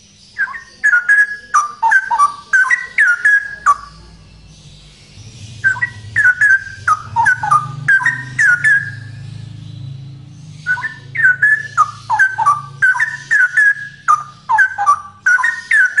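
Male straw-headed bulbul singing loud, rich, bubbling warbled phrases in three bouts with short pauses between them.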